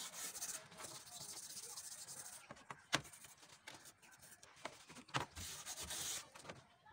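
Steel-wool pad scrubbing a rusty bill hook blade wet in a plastic tray: a rough scraping hiss for the first couple of seconds and again around five seconds in, with two sharp knocks between.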